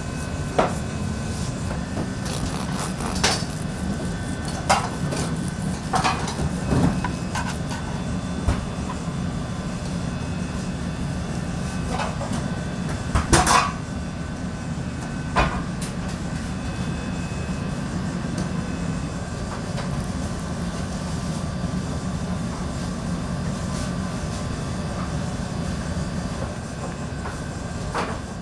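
Bakery kitchen sound: a steady machine hum with scattered knocks and clatter of pans and utensils, the loudest clatter about halfway through.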